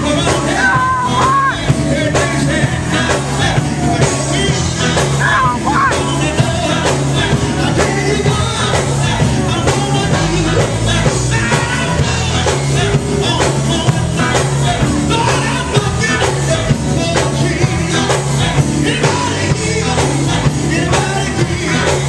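Live gospel group performing: a lead singer and backing vocalists singing over amplified electric guitar and keyboard, with a steady beat.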